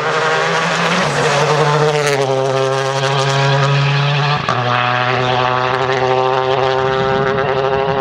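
Renault Clio rally car's engine running loud at a steady pitch as the car passes and drives away, with one short break and a small drop in pitch about halfway through.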